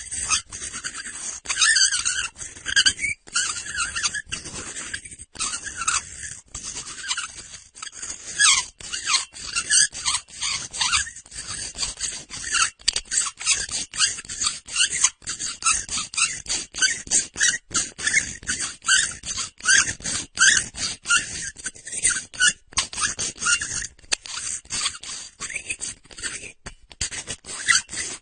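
Metal base of a light bulb being twisted in a porcelain socket, squeaking and scraping in a fast, uneven run of short strokes.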